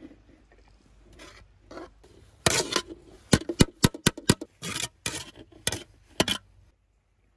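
Perforated metal skimmer spoon scraping across an aluminium tray and knocking on the rim of an aluminium pot as rice is scooped into it. A few soft scrapes, then from about two and a half seconds a quick run of sharp metallic knocks and scrapes that stops about a second before the end.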